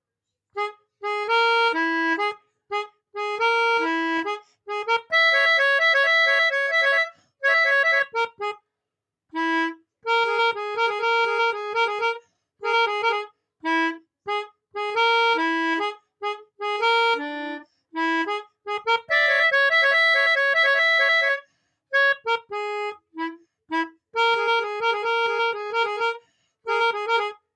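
A multi-tone telolet bus horn playing a melody as a run of short, abruptly switched notes, grouped into repeating phrases with brief gaps between them.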